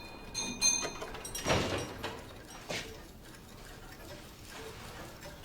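A few scattered knocks and clicks of objects being handled, the loudest about a second and a half in.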